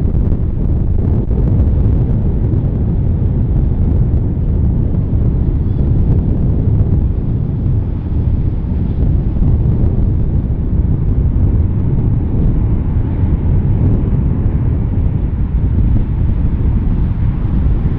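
Boeing 787 jet engines at takeoff thrust: a steady, deep roar as the airliner rolls, lifts off and climbs away, with wind buffeting the microphone.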